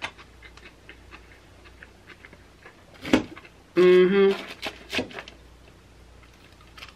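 Close-up wet chewing and lip-smacking of a person eating, a run of small mouth clicks with a sharper smack about three seconds in. A short hummed "mm" of enjoyment follows just after.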